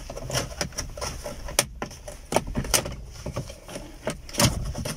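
Irregular clicks and light knocks of hands working at a car's plastic dashboard trim panel, with sharper knocks about a second and a half in and again near the end.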